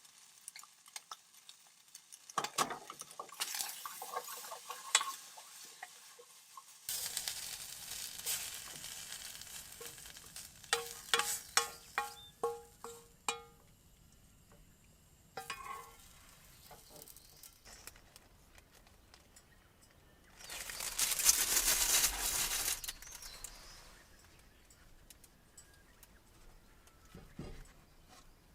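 Camp cooking: metal utensils clicking, scraping and clinking against pans and dishes, with several ringing metallic clinks. A hiss of about two and a half seconds comes a little past the middle.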